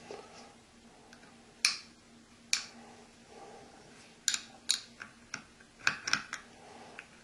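Craft knife with a 30-degree blade trimming vinyl wrap on a metal helmet: about ten short, sharp, irregularly spaced ticks as the blade tip cuts the film and touches the metal beneath.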